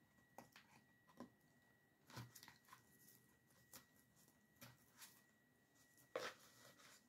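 Faint rustling and scattered small clicks of flower stems, rose hips and leaves being handled and pushed into a plastic pumpkin arrangement, the loudest click about six seconds in.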